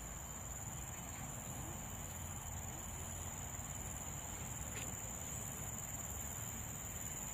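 Insects giving a steady, unbroken high-pitched shrill drone, over a low background rumble.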